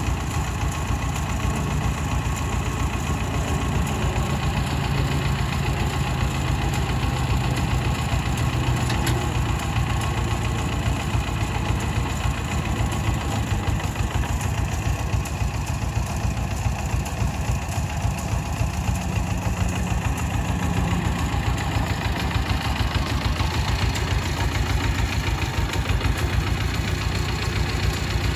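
Compact farm tractor's engine running steadily with a rapid, even chug, as the tractor carries a log on its 3-point hitch pallet fork.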